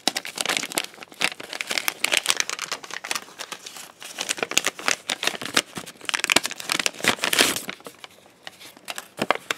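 Clear plastic packaging bag and its paper insert card crinkling and rustling as hands handle and open them. The crinkling is dense and irregular, then thins to a few scattered crackles near the end.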